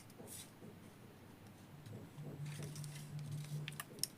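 Faint handling noise from a Bluetooth neckband being fitted back together: light rustling and a few small plastic clicks near the end.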